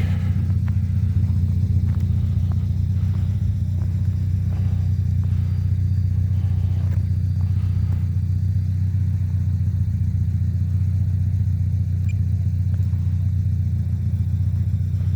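A steady, loud low engine hum that holds the same pitch and level throughout.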